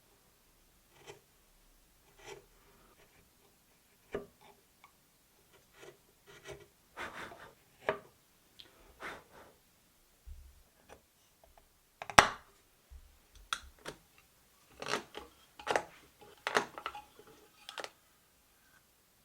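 Hand tools working wood: irregular short scrapes and light taps, with one sharp knock about twelve seconds in and a run of scraping strokes near the end.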